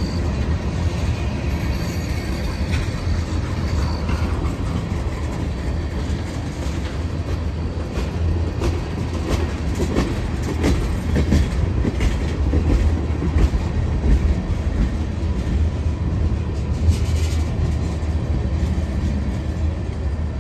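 Freight train of tank cars rolling past close by: a steady low rumble of wheels on rails, with bursts of clicking as the wheels cross rail joints, thickest around the middle.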